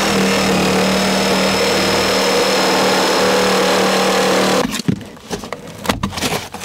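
Hand-held electric saw with a thin blade cutting through wooden trim, running at a steady pitch, then cutting off suddenly after about four and a half seconds. A few short knocks and scrapes follow as the cut wood is handled.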